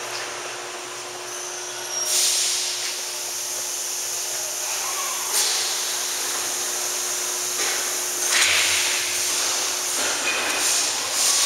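Steady hiss with a faint hum, the background noise of a factory floor, swelling louder several times.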